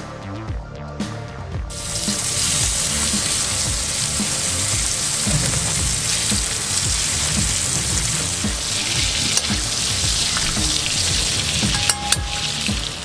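Meat sizzling in hot fat in a hand-forged sheet-iron frying pan, the sizzle starting suddenly about two seconds in as the meat goes into the pan, over background music with a steady beat.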